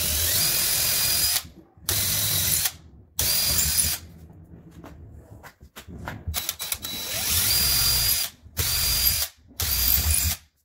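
DeWalt cordless drill spinning a twist bit into the corner of a cabinet door to bore a knob hole, run in about six bursts of one to two seconds each with short pauses between.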